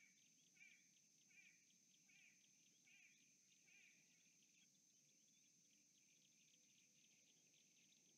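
A faint bird calling about six times, each wavering note roughly a second apart and each fainter than the last, dying out about halfway through. Behind it are a steady high insect buzz and scattered faint chirps.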